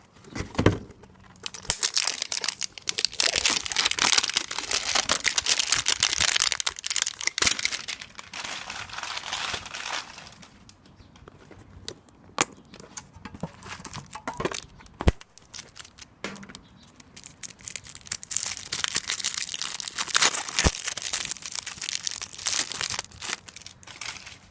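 Card-pack wrapping crinkling and tearing as a pack of trading cards is opened, in two long stretches with a few sharp clicks in between.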